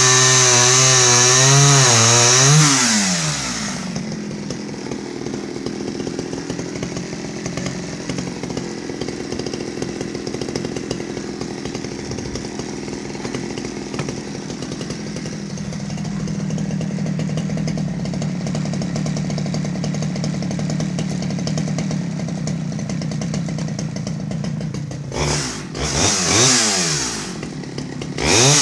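Stihl 011 AVEQ 41cc two-stroke chainsaw at full throttle, its pitch wavering under load as it cuts through very hard wood, then dropping back to a steady idle about three seconds in. Near the end it is revved up briefly twice.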